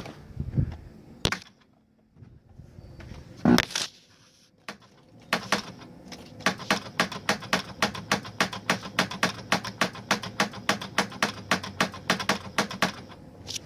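Cadillac DTS's Northstar V8 being cranked by its starter after a timing job and not catching: a steady starter hum with sharp regular clicks about four or five a second, starting about five seconds in, after a few separate knocks.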